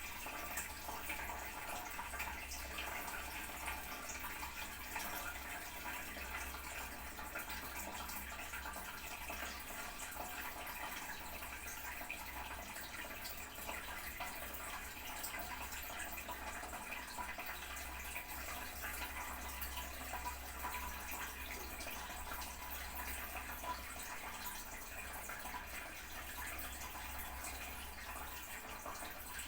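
Toilet tank refilling: water running steadily into the cistern, with a low hum underneath.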